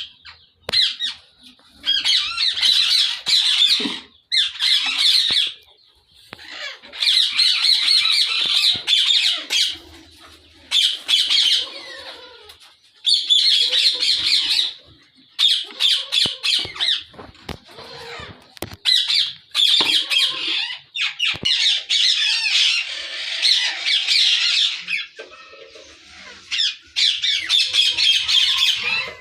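A colony of ringneck parakeets calling loudly in repeated bouts of one to three seconds, with short pauses between.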